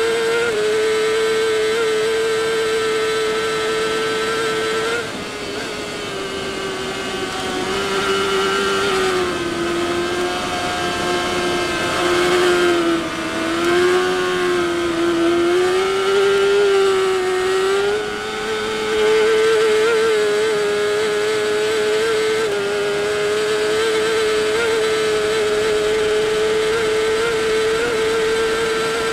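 Inline-four superbike engine held at high revs under full throttle, heard on board at racing speed. Its pitch stays high and steady, dropping briefly about five seconds in and sagging and wavering through the middle before climbing back.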